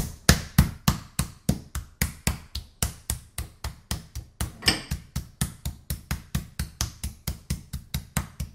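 Metal meat mallet pounding a raw chicken breast flat on a plastic cutting board: a steady run of dull thuds, about four a second.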